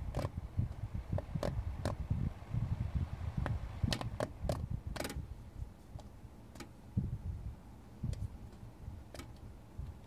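Small Caframo Dragonfly fan's soft blades clicking against a cat's paw as the cat stops and lets go of them: irregular sharp ticks, a dozen or so, over a low rumble. The repeated stalling of the fan is straining its motor.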